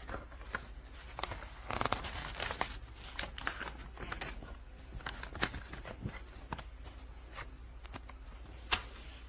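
Packaging being handled and torn: irregular rustling and tearing with scattered sharp clicks and knocks, the loudest about 5.5 s and 8.7 s in, over a steady low hum.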